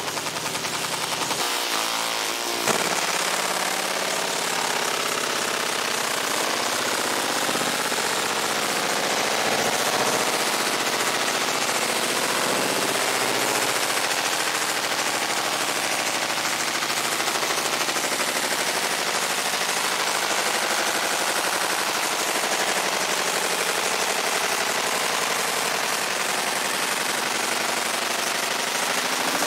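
Fiber laser engraving the steel head of a sledge hammer: a steady, rapid crackling buzz as the pulsed beam ablates the metal.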